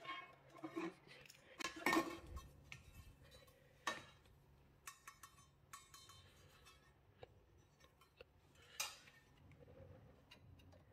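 Sheet-metal cover plate and screwdriver being handled on an inverter charger's terminal compartment: scattered metallic clicks and clinks, the loudest about two seconds in, with others near four and nine seconds.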